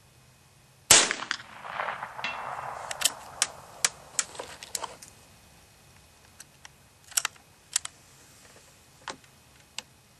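A single .22 shot from a Davey Crickett single-shot youth rifle about a second in, one sharp crack. It is followed by handling noise and a series of sharp clicks as the rifle is reloaded, with more scattered clicks near the end.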